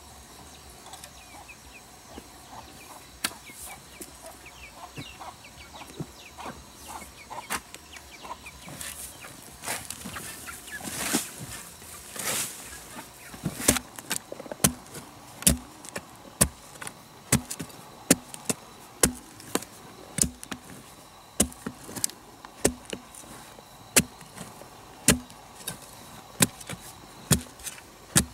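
A hand tool striking repeatedly, scattered and light at first, then settling about halfway in into steady blows of about one a second, each a sharp knock with a dull thud under it.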